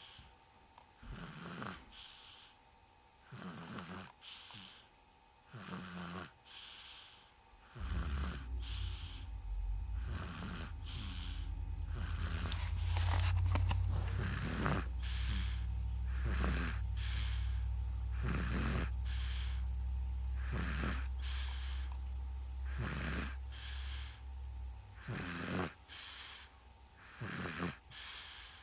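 Steady, rhythmic snoring of a sleeper, one snore about every two seconds. A low, steady rumble joins about eight seconds in and fades out near twenty-five seconds.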